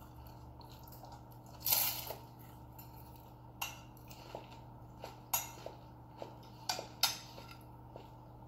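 Spoons clinking and scraping on ceramic bowls and plates during a meal: scattered sharp taps, with a longer, louder scrape about two seconds in. A steady low hum runs underneath.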